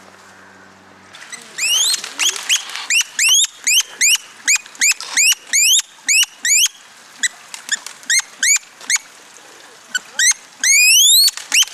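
An animal giving a rapid series of short, shrill rising squeals, about two a second, with a quick cluster near the end. A steady low hum is heard only for the first second.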